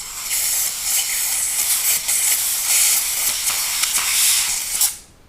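Can of compressed air (electronics duster) spraying a steady, loud hiss into the open bottom of a knife handle to blow out debris, cutting off near the end.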